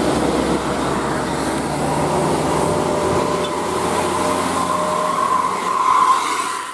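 A large bus passing close by: steady engine and tyre noise with a low drone, and a faint high whine that grows louder near the end.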